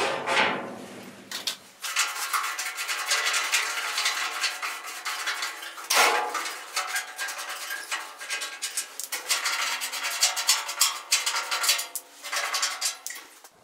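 Rapid metallic clinking, rattling and scraping as hands work at a sheet-steel washing-machine cabinet and its threaded levelling feet. It starts about two seconds in and breaks off sharply once, about six seconds in.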